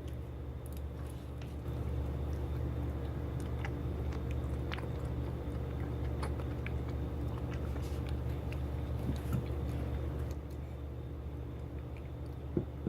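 Small scattered clicks and scrapes, like plastic toy pieces being handled, over a steady low hum.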